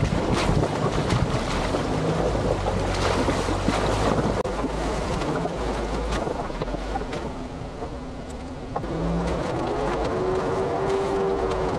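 4x4 vehicle crawling in four-wheel-drive low over a rough trail: engine running under a steady rumble of wind on the microphone, with scattered knocks and rattles and a brief rise and fall in engine pitch near the end.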